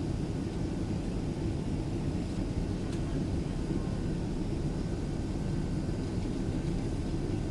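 Steady cabin noise aboard a Boeing 767-300 airliner: an even, deep rumble of engines and airflow heard from inside the cabin, with no sudden changes.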